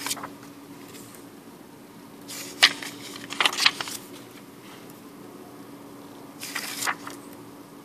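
Paper banknotes (Swedish kronor notes) rustling and crackling as they are turned over and pressed flat on a wooden table, in a few short bursts, the first with a sharp snap about two and a half seconds in. A faint steady hum sits underneath.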